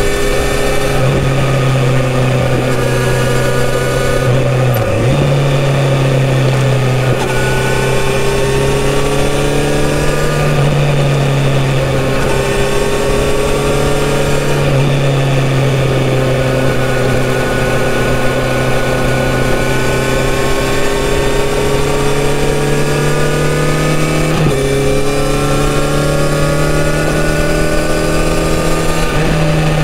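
Kawasaki Z900RS's 948 cc inline-four engine on a full-system exhaust, heard from the rider's seat while riding. The note climbs under throttle and drops at each gear change, sags on the overrun through the middle, and jumps up sharply twice near the end.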